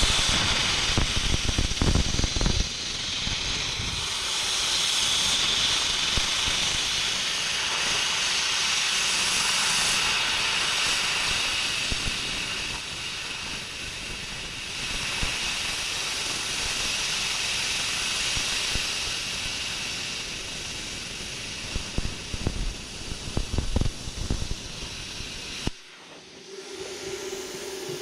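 Plasma cutter cutting through metal: a steady hiss with crackling at the start and again near the end, stopping suddenly about 26 seconds in.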